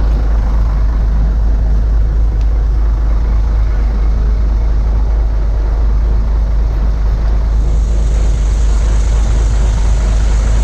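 Steady low rumble and road noise of a moving vehicle, with a high hiss coming in about eight seconds in.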